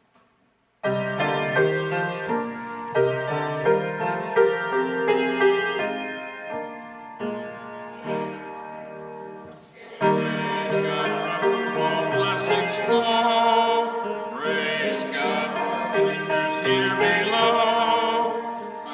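Church offertory music on keyboard, starting abruptly about a second in with a moving line of chords. About ten seconds in it grows louder and fuller, with wavering vibrato in the upper notes.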